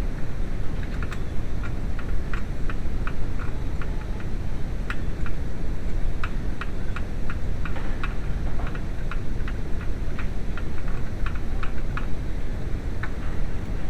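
A steady low rumble, most likely the 2.0L engine running, with irregular light clicks or ticks over it, several a second and unevenly spaced.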